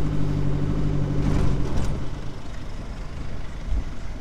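Four-wheel-drive vehicle's engine heard from inside its cabin while driving, running with a steady hum for about two seconds. Then the engine note drops away, leaving quieter road and tyre noise.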